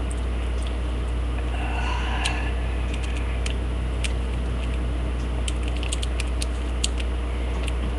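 Small, faint metal clicks and ticks of a homemade lock pick working the pins inside a lock held under a tension wrench, irregular and more frequent in the second half, over a steady low hum.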